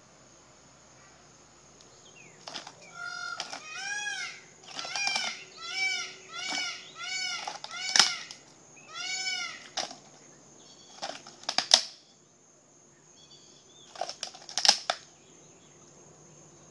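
Alligator jaws crunching through a turtle shell, with sharp cracks of breaking shell, the loudest about halfway through and near the end. In between, something calls about eight times in quick succession, each call rising and falling in pitch.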